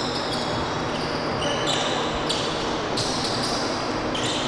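Basketball game on a hardwood court: a basketball bouncing and sneakers squeaking in several short high-pitched chirps against the steady noise of the gym.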